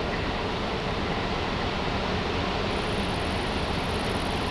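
Steady rushing rumble of an approaching regional electric multiple unit, mixed with wind on the microphone. A faint high-pitched whine joins about three seconds in.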